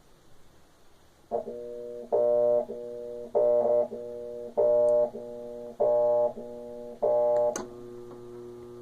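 Electrolux LT12 washing machine motor humming without turning the agitator, swelling loud and dropping back about every second and a quarter. A sharp click near the end is followed by a steadier, quieter hum. The motor is stalled on agitation, which the repairer suspects is a bad motor or run capacitor.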